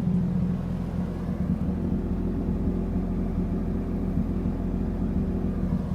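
Toyota 1JZ straight-six engine idling steadily, warmed up to running temperature.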